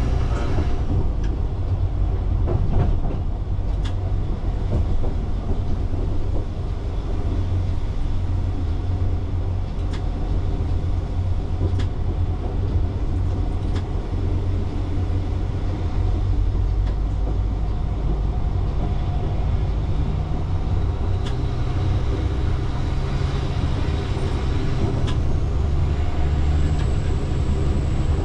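Alstom Coradia LINT diesel railcar running, heard from the driver's cab: a steady low engine drone under the noise of the wheels on the track, with a few light clicks. The engine note shifts to a new steady pitch about two-thirds of the way through, and a faint high whine comes in near the end.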